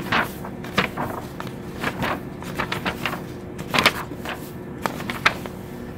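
Paper pages of a Nories Nautical Tables book being leafed through: irregular rustles and flicks, over a low steady hum.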